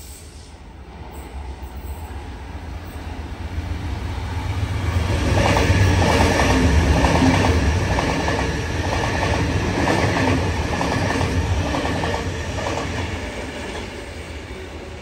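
Sydney Trains Waratah electric double-deck train running past close by. It builds over several seconds, its wheels clicking over the rail joints about twice a second with a low steady hum beneath, then fades away near the end.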